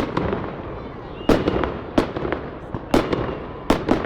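Fireworks display: aerial shells bursting with sharp bangs, about five in four seconds, each followed by a fading rumble and echo.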